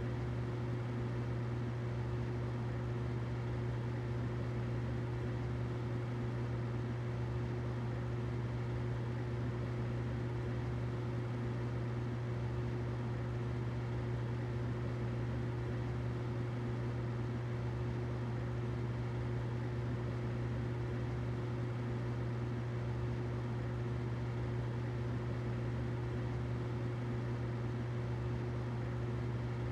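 Humidifier running with a steady low hum, a fainter higher tone and an even hiss.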